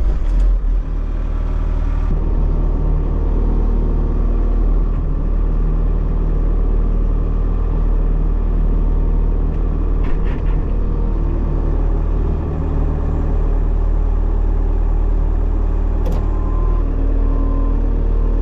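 Bobcat Toolcat utility machine's diesel engine running steadily, a loud low rumble, with a brief click about ten seconds in and another near sixteen seconds.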